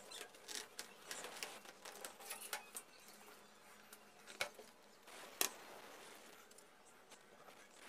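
Small plastic clicks and taps from the Dell QuietKey SK-8000 keyboard's keys and parts as they are handled. A quick run of light clicks comes first, then two sharper single clicks about a second apart, then it goes almost quiet.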